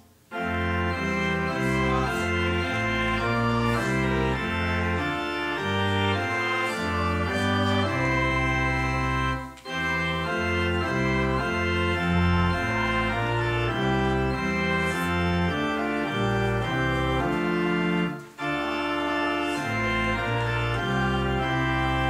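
Church organ playing a hymn tune in sustained chords, in phrases about nine seconds long with brief breaks between them.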